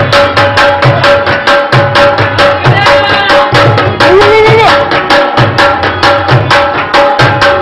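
Dance music with a fast, steady drum beat under a held melodic tone, and a short rising note a little after four seconds.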